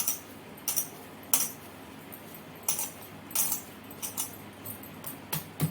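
Oiled dough being kneaded by hand against its bowl: a string of short, irregular clicks and light clinks.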